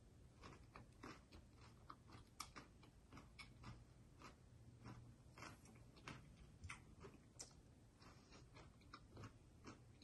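Faint chewing of crisp raw salad vegetables, a mouthful of radish: a steady run of small, irregular crunches, a few a second.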